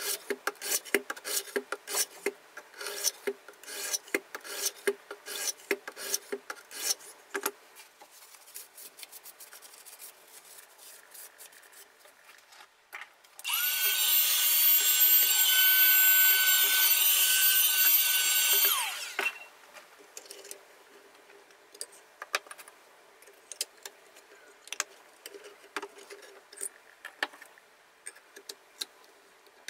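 Two diamond sharpening plates scraping along both sides of a knife blade at once in rapid strokes, sped up threefold, then a few sparse clicks. About halfway through, a small electric motor runs for about five seconds with a steady whine and winds down as it stops; this is the loudest sound.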